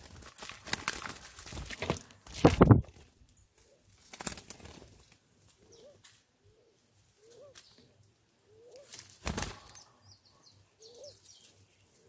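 Doves' wings flapping in sudden flurries as they land on and take off from a hanging seed feeder, the loudest about two and a half seconds in and another near the ninth second. Between the flurries come short, soft, low coos, one roughly every second.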